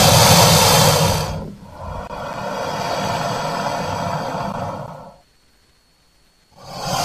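Crocodile hissing, a breathy noise over a low rumble, in long exhalations. One hiss fades out just over a second in, a second runs for about three and a half seconds, and after a short pause another begins near the end.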